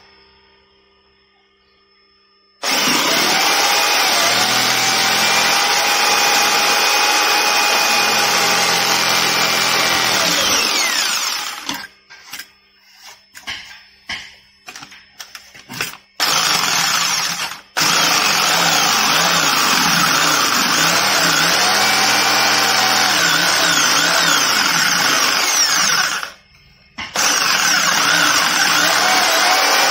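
Electric jigsaw cutting a wooden board, its motor pitch sagging and recovering as the blade loads up along the curves. It starts about two and a half seconds in, stops and restarts in short spurts partway through, then runs on in long cuts with one brief pause near the end.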